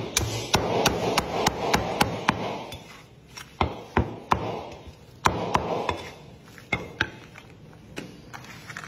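A cleaver chopping roast bird on a thick wooden chopping block: a quick run of sharp chops, about four a second, for roughly three seconds, then scattered chops with a short cluster about five seconds in.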